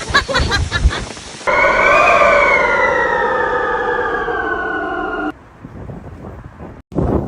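Wind buffeting the microphone with a few short yelps. Then a dog, a dachshund, lets out one long howl of about four seconds, rising briefly and then slowly sliding down in pitch.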